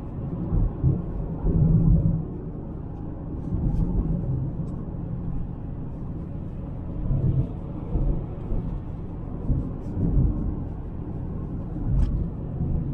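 Cabin noise of a 2003 Mercedes C200 Kompressor (W203) on the move: a steady low rumble from its 2.0-litre supercharged four-cylinder engine and the tyres on a wet road. The rumble is broken by several irregular louder low surges.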